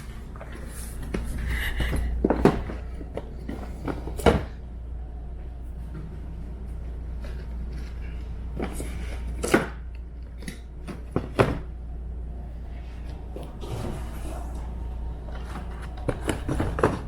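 Cardboard sneaker boxes being handled and set down: scattered knocks and thuds with rustling, over a steady low hum.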